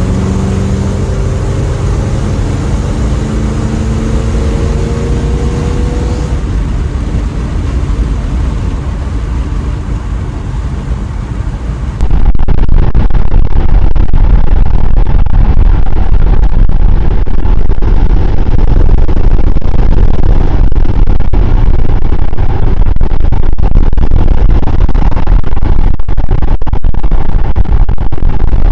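Small-block Chevy 350 V8 with a new exhaust, driving on the highway. For the first six seconds the engine note rises as it accelerates. About twelve seconds in the sound turns louder and duller: a steady drone of engine, road and wind noise.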